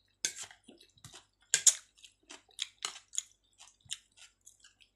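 Close-up chewing of soft chicken and potato in coconut-milk sauce: a string of short wet mouth smacks and clicks, a few a second, the loudest about one and a half seconds in.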